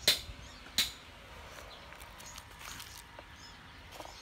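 Two sharp knocks about a second apart as clumps of dirt are dropped onto a plastic toy dump truck's tipper bed, followed by faint rustling of soil.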